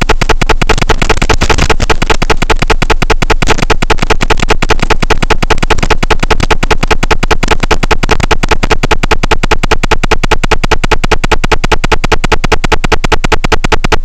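Loud, steady, harsh electronic buzz with a rapid even pulse. It is the interference noise that an analog FPV video receiver puts on its recorded audio track.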